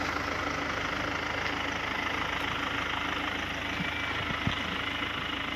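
Vehicle engine running steadily at low revs, a constant hum with no change in pitch.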